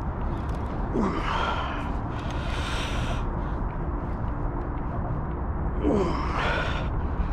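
A man gasping and breathing hard with effort: two short strained gasps, about a second in and near the end, with a breathy exhale between them, over a steady low rumble of wind on the microphone.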